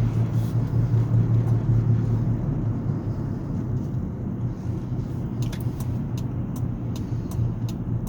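Cabin of a 2005 Ford Freestar minivan at highway speed: a steady low drone over road and tyre noise. This is the unexplained noise the driver is chasing, which comes with a vibration felt through the steering wheel. From about five seconds in, light regular ticks sound, about two or three a second.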